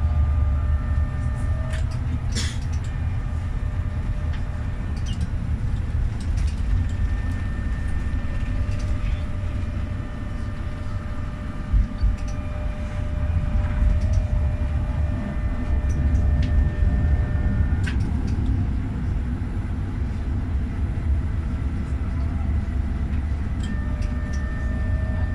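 GEC-Alsthom TFS tram running on its rails, heard from the driver's cab: a steady low rumble with a faint steady whine above it, and a few short knocks from the wheels along the way.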